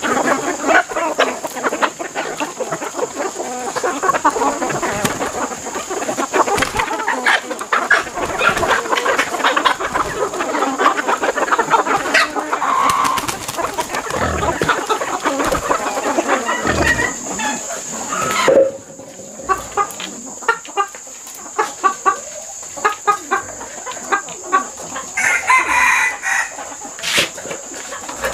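A large flock of chickens and roosters clucking and squawking busily at feeding, dropping off suddenly about two-thirds of the way in to scattered clucks, with a rooster crowing near the end.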